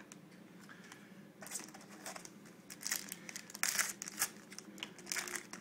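Crinkling and rustling of hockey trading cards and their pack wrapping being handled, in irregular bursts that start about a second and a half in and are loudest a little past the middle.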